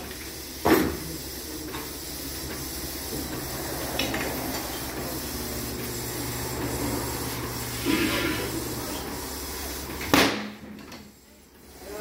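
Tyre-changing work at a tyre changer: a metallic knock, a low steady machine hum through the middle, and a loud bang about ten seconds in, then a quieter moment.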